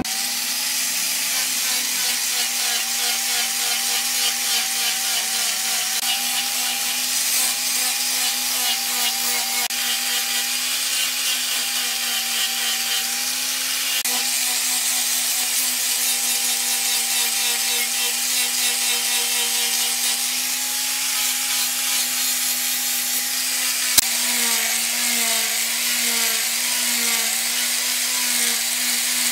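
Hand-held electric angle grinder with a sanding disc running continuously, a steady motor whine over the hiss of the abrasive, as it sands the wooden machete handle. After a sharp click about 24 s in, it is working the steel blade, throwing sparks, and its whine wavers up and down about once a second as the disc is pressed on and eased off.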